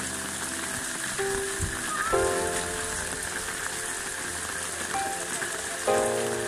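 Steady rain pattering on roofs and a wet concrete yard, with water running off the corrugated roof edges. Soft background music with held notes comes in a few times over the rain.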